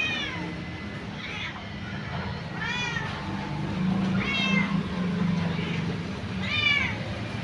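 A kitten meowing repeatedly: about six high, thin meows a second or so apart, each rising then falling in pitch, some louder than others. A steady low hum runs underneath.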